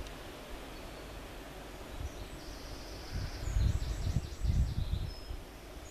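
Outdoor ambience: wind buffeting the microphone in low, uneven gusts, strongest about three to five seconds in, with a small bird's high, rapid chirping over it.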